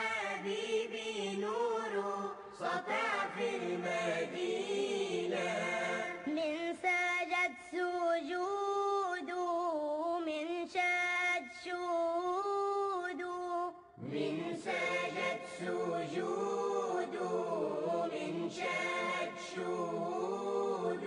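Background music: a voice chanting a slow melody with long held notes, breaking off briefly about two-thirds of the way through.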